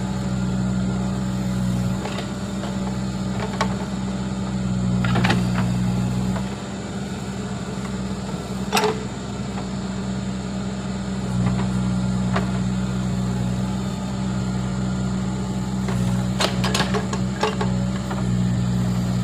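Case backhoe loader's diesel engine running under working load, its note rising and easing every few seconds as the backhoe arm digs and swings, with scattered sharp knocks of the bucket and linkage.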